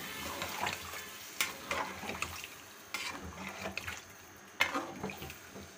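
A metal ladle stirring potato and kofta curry in a metal pot, scraping against the pot in several irregular strokes, the loudest about four and a half seconds in, over a faint steady sizzle from the cooking curry.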